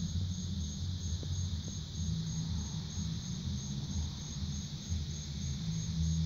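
Insects chirping in a steady high-pitched pulse, about three chirps a second, over a low, uneven bass from a neighbour's music playing in the background.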